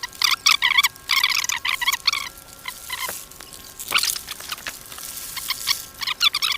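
A flock of three-day-old broiler chicks peeping: many short, high cheeps overlapping in a dense, continuous chorus.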